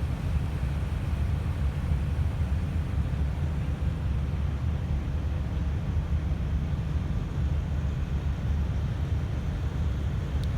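Oil drilling rig's machinery running with a steady, deep rumble. A short click comes near the end.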